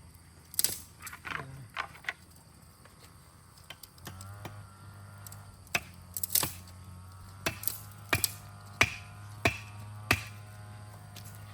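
A series of sharp knocks or strikes: a few scattered ones early, then a steadier run of about one every 0.7 s in the second half. Underneath is a low steady hum.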